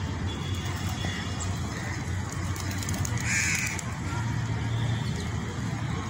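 A crow cawing once, loudly, about halfway through, with a few fainter calls before it, over a steady low rumble.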